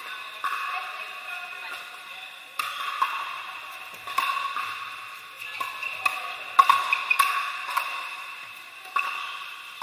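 Pickleball paddles hitting the hollow plastic ball on several courts at once: a dozen or so sharp pops at uneven intervals, each ringing briefly in a large echoing hall, over a murmur of voices.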